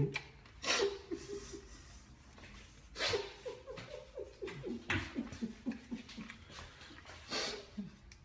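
A woman laughing in several breathy bouts, each a run of quick pulses that falls in pitch, with audible breaths between them.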